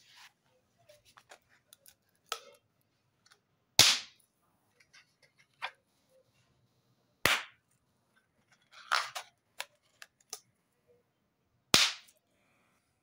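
Small latex balloons popping one after another: three sharp pops a few seconds apart, the last the loudest. Quieter rubber handling sounds and small clicks come between them.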